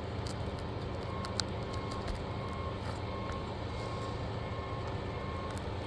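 A steady low machine hum, like an engine running nearby, with a faint on-off tone above it. A few faint clicks are heard as a tool works at the roofing nails in the shingles.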